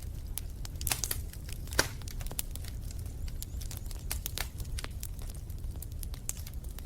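Wood fire in a fireplace crackling, with irregular sharp pops over a steady low rumble; the loudest pops come about a second in and just before two seconds.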